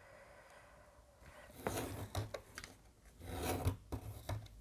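A tool scraping along paper in two strokes, scoring diagonal fold lines on a strip of paper for a pop-up mechanism.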